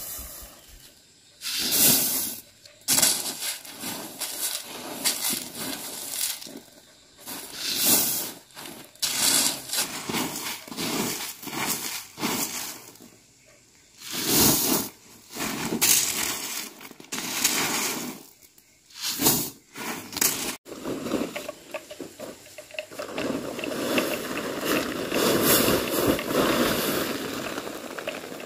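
Dried corn kernels scooped and poured into a plastic sack, in repeated hissing, rattling rushes with short pauses between. Near the end, a continuous rustle of the plastic tarp being dragged and folded.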